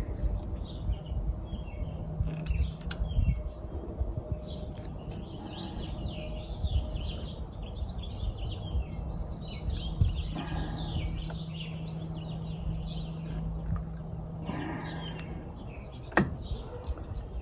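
Small birds chirping and twittering continuously, with scattered clicks and knocks of hand tools and metal parts being handled.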